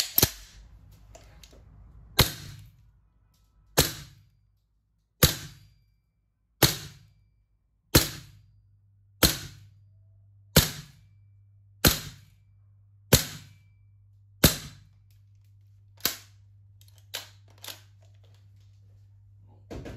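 VFC/Umarex HK416D gas blowback airsoft rifle fired semi-auto on black gas, one shot about every second and a half, each a sharp crack with the bolt cycling. About a dozen shots, then two fainter pops close together near the end.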